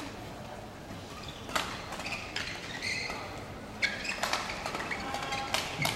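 Badminton rally: rackets striking a feather shuttlecock in sharp pops every second and a half or so, with shoes squeaking briefly on the court mat between the hits.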